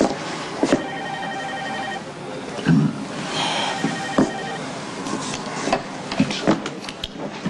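An electronic telephone ringer trilling for about a second, starting about a second in, with a further warbling tone a little later. Scattered knocks and handling sounds around it, the loudest a dull thump shortly before the middle.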